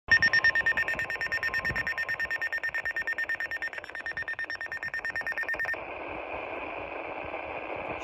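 Red Cross emergency weather radio sounding its alert for a severe thunderstorm warning: a rapid, high-pitched beeping at about seven beeps a second. After almost six seconds the beeping cuts off and a steady radio hiss follows.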